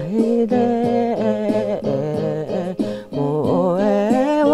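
A woman singing over keyboard chords, her melody gliding up in pitch near the end.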